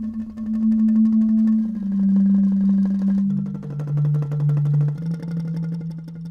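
Ensemble music played on bamboo instruments: a low held melody line steps down in pitch note by note, over fast, evenly repeated strikes like a bamboo xylophone.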